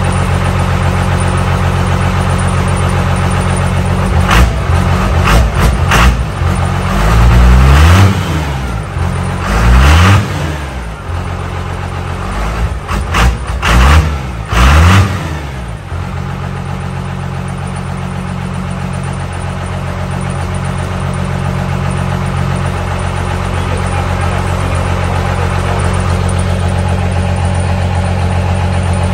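First-gen Dodge truck's diesel engine idling, then revved hard about six times between about 4 and 16 seconds in, each rev climbing and falling back, before it settles to a steady idle. Its exhaust leaves through a hood stack capped with a galvanized metal trash can.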